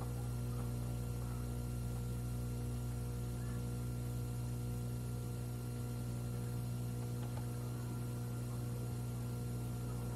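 Steady low mains hum with a faint hiss under it, and nothing else clearly heard.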